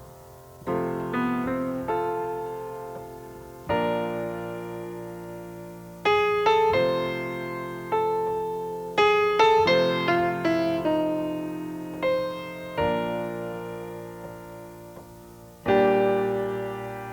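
Slow solo piano: chords and single notes struck every second or so and left to ring and fade, with quick runs of notes about six and nine seconds in.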